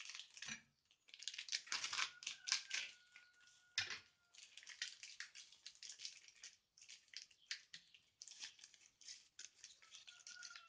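Packaging of a packet of military ration biscuit bread being crinkled and torn open by hand, a dense run of short, irregular rustles and crackles.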